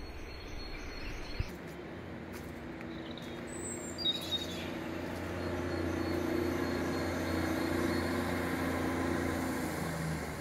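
Diesel passenger train crossing a high stone railway viaduct, its drone swelling towards the middle and dying away near the end. A bird chirps briefly about four seconds in.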